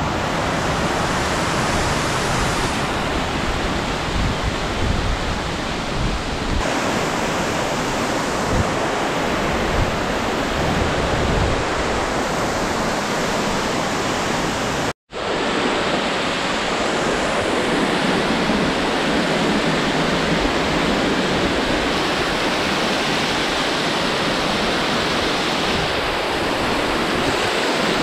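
Waterfall water rushing loudly and steadily. It drops out for an instant about halfway through, then comes straight back.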